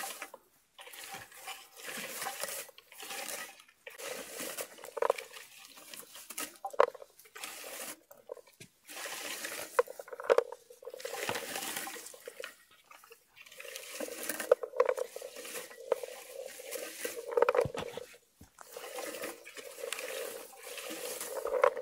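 Hand-held bilberry comb raked through low bilberry bushes again and again, each stroke a rustling scrape with berries rattling into its hopper.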